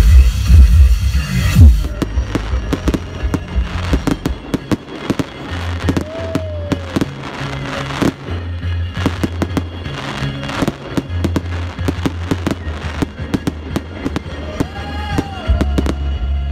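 Fireworks going off: a rapid run of crackles and bangs over electronic music with a steady bass.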